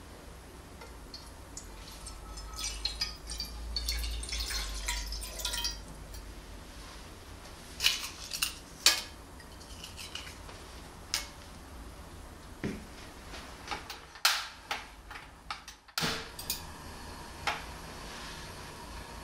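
Water poured from a bottle into a ceramic frying pan for about four seconds, then pieces of dried kelp laid in with light taps. Near the end come several sharp clicks, typical of a gas stove's igniter being worked to light the burner.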